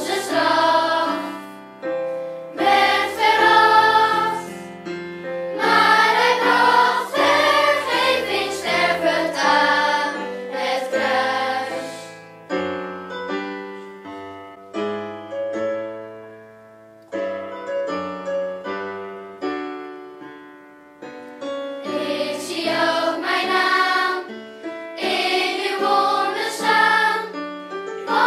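Children's choir singing with piano accompaniment. The voices drop out about halfway through for a short piano-only passage, then the choir comes back in near the end.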